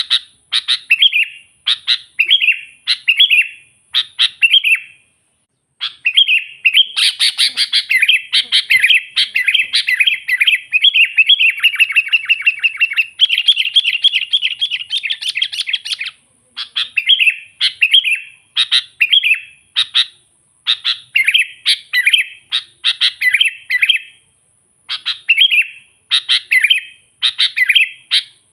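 Sooty-headed bulbul singing in energetic "gacor" form: short bubbly whistled phrases repeated about once a second, running together into a fast, unbroken stream for about ten seconds in the middle.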